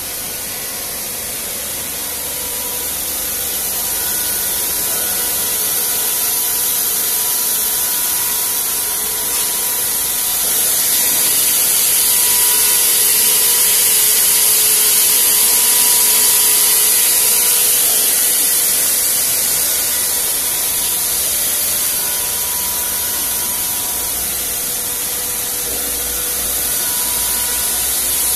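Circular knitting machine running at speed: a steady, high hiss of the needles and yarn with faint humming tones underneath, swelling a little in the middle.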